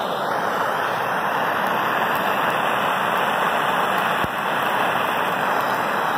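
Handheld pencil gas torch burning with a steady hiss of its flame.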